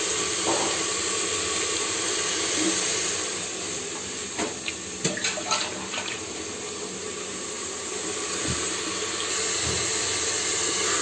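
Ground onion, tomato, garlic and green chilli masala sizzling steadily in hot oil in an open pressure cooker, with a few light clicks near the middle.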